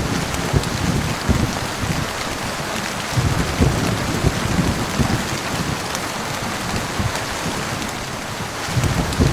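Heavy rain falling in a steady hiss, with low rumbles of thunder swelling at the start, again about three to five seconds in, and once more near the end.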